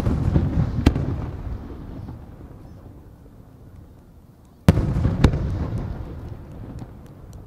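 Two Japanese aerial firework shells from Marugo bursting a few seconds apart. Each is a sudden loud boom followed by a second sharp crack and a long rolling echo that fades away.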